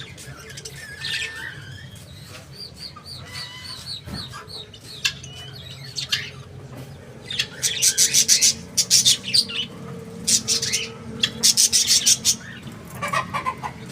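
Budgerigars chirping and warbling, breaking into loud bursts of rapid, high-pitched chirps about halfway through.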